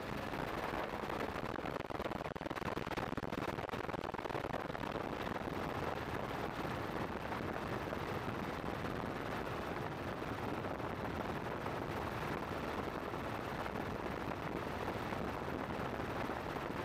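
Helicopter rotor blades chopping in a rapid, steady beat over engine and wind noise, heard from on board the aircraft.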